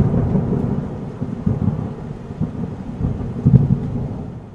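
A deep rolling rumble, like thunder, loudest at the start and dying away over a few seconds, with a couple of swells along the way.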